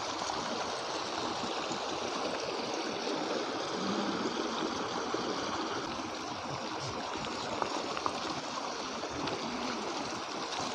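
A flock of sheep and pashmina goats walking over stony ground: a steady rustle and patter of many hooves on loose rock.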